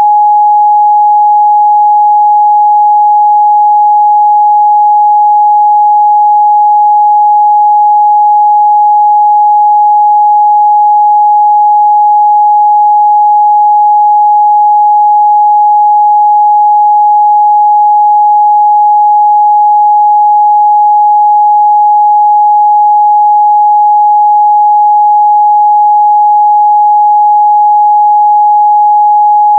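A steady, loud 836 Hz sine-wave test tone, one pure pitch held without change.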